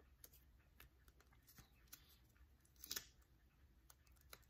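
Faint taps and light scrapes of cut-out paper tangram pieces being slid and set down on a dry-erase board, with a slightly louder scrape about three seconds in.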